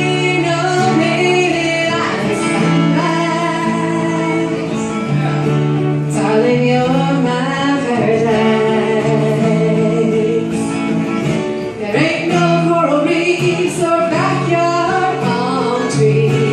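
Music: a song with guitar accompaniment and a singing voice, melodic lines gliding over steady held chords.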